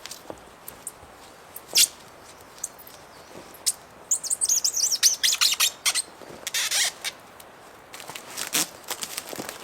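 A bird chirping in a quick run of high, falling notes about four seconds in, among scattered sharp clicks and knocks.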